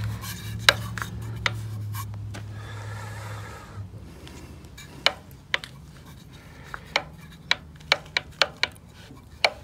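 Sharp metallic clicks and taps from metal parts and hand tools being handled while a radial arm saw's motor is worked on. The clicks are scattered at first and come more often in the second half, over a low steady hum that stops about three and a half seconds in.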